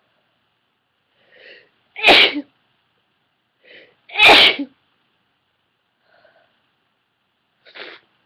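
A woman sneezing twice, induced on purpose. Each loud sneeze comes after a short, faint breathy build-up, the first about two seconds in and the second about two seconds later.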